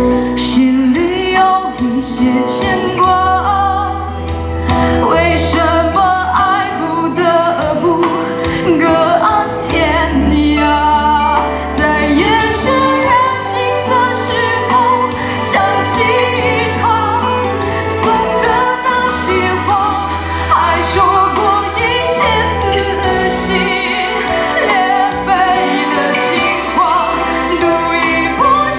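A woman singing a Mandarin pop song live into a handheld microphone, over instrumental accompaniment with a steady bass line.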